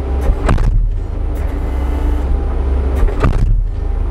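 Skid steer engine running steadily under hydraulic load while the post pounder's hammer drives a wooden post, with two heavy strikes about three seconds apart.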